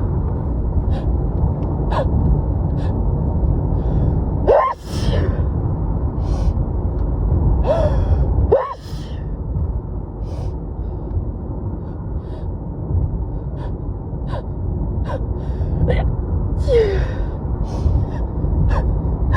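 A woman's wet sneezing fit. Sharp gasping intakes rise in pitch before two harsh sneezes, about five and nine seconds in, with short breaths and sniffles between and another gasp near the end. A steady low rumble runs underneath.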